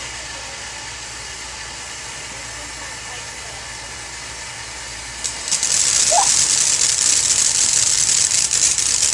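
Ground firework fountain spraying sparks with a steady hiss. About five seconds in it flares up, and the hiss turns louder and crackly.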